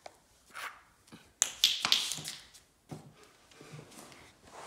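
Sharp taps and clatters of a small hard ball striking the tile floor, with a quick run of loud taps about a second and a half in and fainter single taps after.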